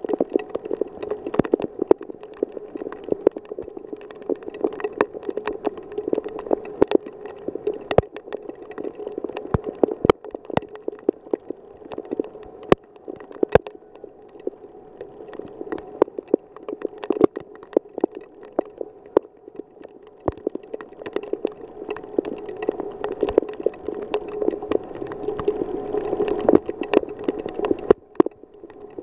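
Heavy rain: a steady wash of rainfall with many sharp, irregular taps of drops landing close by.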